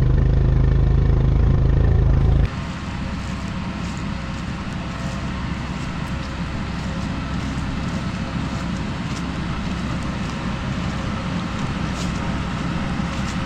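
Tractor engine running steadily with a heavy low drone. About two and a half seconds in it cuts off abruptly to a quieter, steady machinery noise of the tractor and forage harvester working in the corn.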